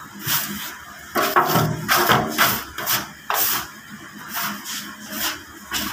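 Hands working crumbly bread dough against a steel trough: irregular rustling, scraping and patting strokes, about two or three a second.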